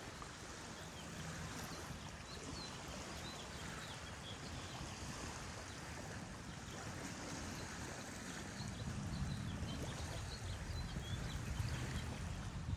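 Steady rush of flowing water, with small birds chirping faintly and repeatedly over it.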